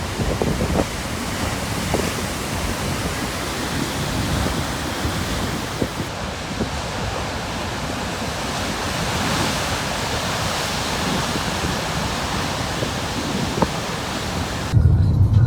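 Large Atlantic waves breaking and churning on a rocky shore at high tide: a steady rush of surf with wind on the microphone. Near the end it cuts abruptly to a different, low droning sound.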